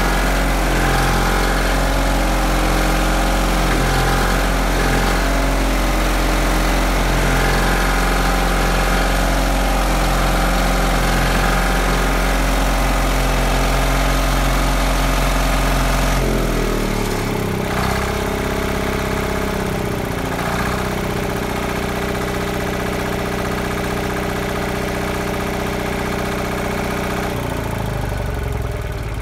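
Allis-Chalmers HD5 dozer's Detroit Diesel 2-71, a two-cylinder two-stroke diesel, running steadily. Just past halfway it drops to a slower, lower idle, and right at the end it winds down.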